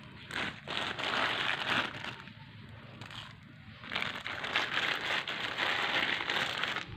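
Rustling, crinkling noise in two stretches of about two to three seconds each, with a quieter pause between them.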